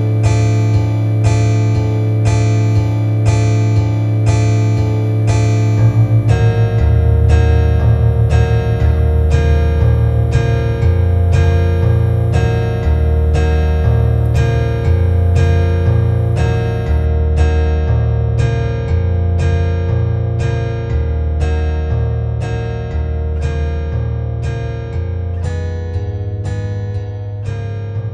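Music: a guitar strummed in a steady rhythm, with a bass line coming in about six seconds in, then slowly fading near the end.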